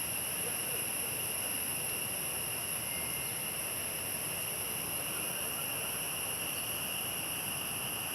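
Steady chorus of insects, several unbroken high-pitched tones over a constant hiss.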